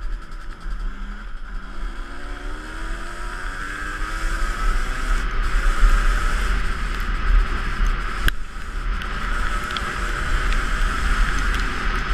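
Two-stroke dirt bike engine accelerating, its pitch climbing over the first few seconds and then held at speed, under heavy wind rumble on the camera microphone. A single sharp knock about eight seconds in.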